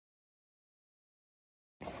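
Dead silence, then a faint noise floor cuts in suddenly near the end, just before the firework cake's shots begin.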